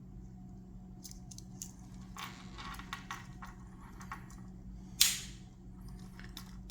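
Small metallic clicks of Swiss Army knife tools being handled and opened and closed, with one loud sharp snap about five seconds in as a tool snaps shut on its spring.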